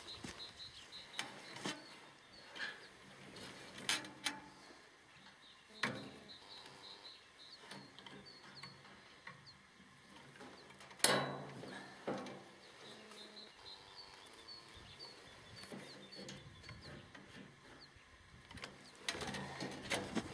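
Scattered sharp knocks and clicks of a nail being bent over and tools handled, the loudest knock about eleven seconds in. Small birds chirp faintly behind them.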